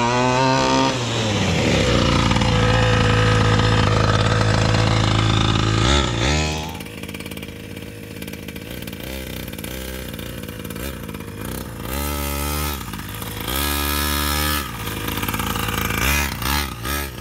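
Two-stroke gas engine of a 1/5-scale Primal RC MT Raminator monster truck held at high revs for about six seconds, then dropping to idle, with three short blips of the throttle in the second half.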